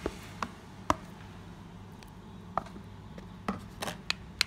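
Black plastic salad tongs clicking and tapping against a clear plastic container while avocado cubes are placed into a leafy salad: about eight scattered sharp clicks, several close together near the end, over a low steady hum.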